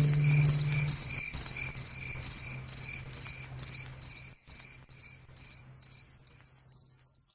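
A cricket chirping, about two chirps a second in an even rhythm, fading out gradually toward the end. A faint low hum lies underneath.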